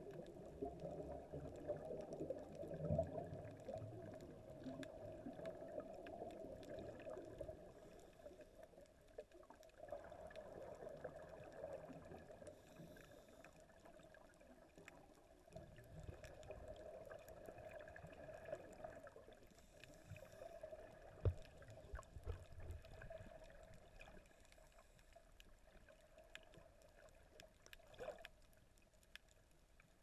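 Faint, muffled underwater sound heard through a camera's waterproof housing: scuba divers' exhaled regulator bubbles gurgling, with scattered small clicks and one sharper knock about two-thirds of the way through.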